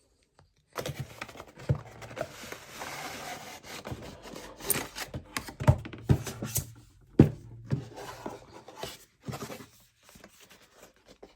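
Doll packaging being handled and opened: rubbing, rustling and scraping with several sharp knocks, dying down to faint clicks near the end.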